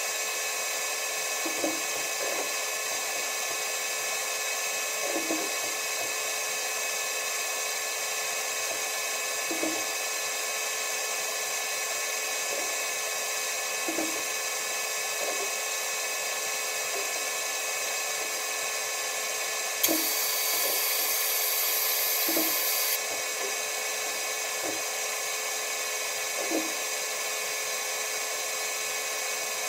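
Steady machine whine and hiss with several fixed tones, broken by faint knocks every few seconds. About twenty seconds in, a louder high hiss cuts in with a click, runs for about three seconds, and stops suddenly.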